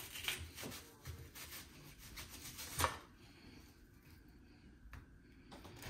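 Bell peppers being cut and handled with a kitchen knife: a few scattered, irregular knocks and scrapes, the loudest about three seconds in.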